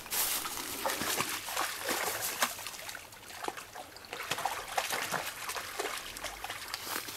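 A dog wading through a shallow creek, its feet splashing and sloshing in the water with irregular steps.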